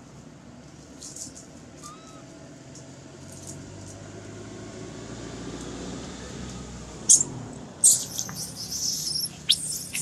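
Baby long-tailed macaque giving a run of loud, shrill squeals from about seven seconds in, distress calls as another monkey grabs it. A few faint high chirps come before them.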